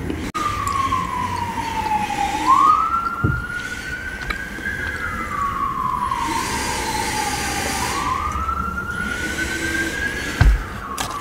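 A siren wailing: a single tone that falls slowly and then rises quickly again, in a cycle of about five and a half seconds. Two short dull knocks come through, one about three seconds in and one near the end.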